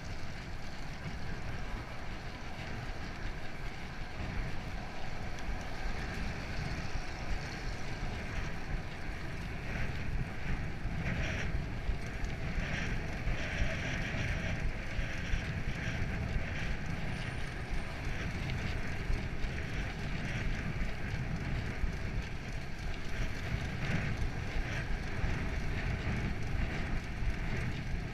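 Wind rushing over the microphone and the steady road hum of a cyclocross bicycle's tyres rolling on asphalt while riding.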